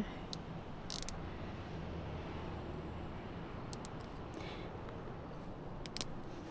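Quiet steady background hum with a faint low rumble, broken by a few light clicks.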